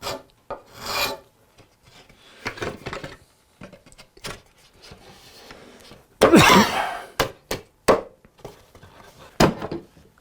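White oak chair parts rubbing and scraping against each other, with several sharp wooden knocks; the loudest scrape comes about six seconds in.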